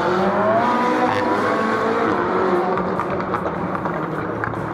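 A road vehicle's engine accelerating on the street. Its pitch rises and drops back more than once, as in gear changes, and the sound fades away over the last couple of seconds.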